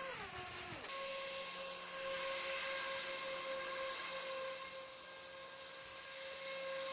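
A 3D-printed skirtless model hovercraft's fan motors whining. The pitch falls sharply as it passes close by in the first second, then the whine holds steady with several tones and an airy hiss that swells and fades.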